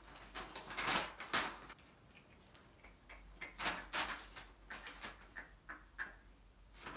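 Paper pages of a notebook being handled and flipped through, a series of short papery rustles.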